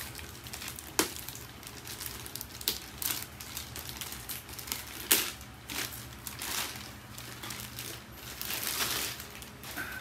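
Packaging being pulled off and crinkled by hand, with irregular rustling and scattered sharp handling clicks; the sharpest clicks come about one and five seconds in.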